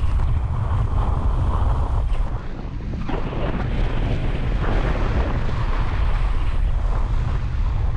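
Wind rushing hard over the camera microphone during a fast speedwing flight: a steady, heavy rumble that eases briefly about two and a half seconds in.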